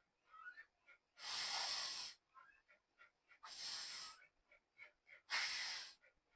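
A man's voice pronouncing a voiceless fricative consonant three times, each a steady hiss of just under a second with pauses between.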